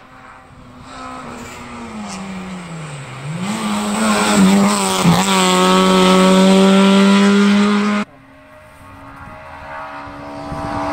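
Race car engine on a hillclimb: the revs fall as the car slows for a bend, then climb again and hold high and loud as it accelerates past. About eight seconds in the sound cuts off suddenly, and a second car's engine is heard approaching, growing louder.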